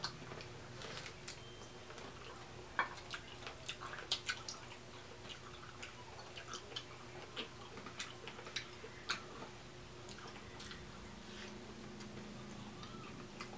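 Close-up eating sounds of seafood boil: irregular wet clicks and smacks of chewing and lip smacking, over a faint steady hum.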